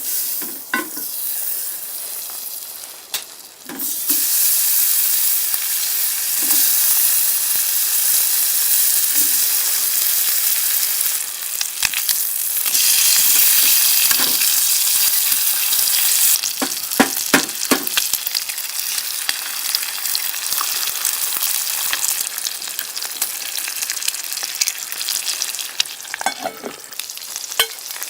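Food frying in a hot pan: a loud, steady sizzle that starts abruptly and grows louder a few seconds in, with the clicks and scrapes of a utensil stirring it now and then.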